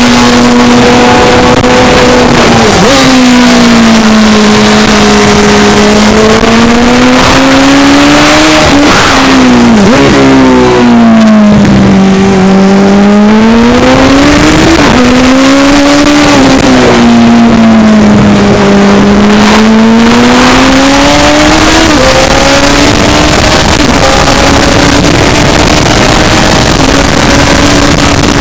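Racing sidecar's motorcycle engine heard onboard at full song: its pitch sags and climbs again and again through the corners, with sudden jumps in pitch several times, over a heavy rushing noise. Very loud.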